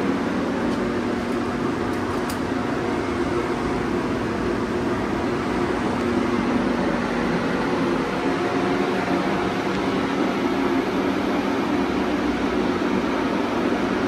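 Steady mechanical hum, a constant drone with a few low steady tones over an even rushing noise, like a motor or ventilation running.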